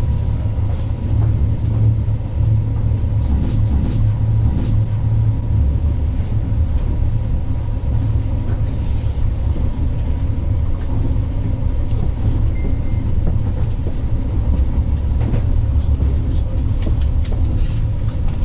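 Ride noise of a 36WEd electric multiple unit under way: a steady low rumble of the running gear on the rails, with a faint steady whine above it.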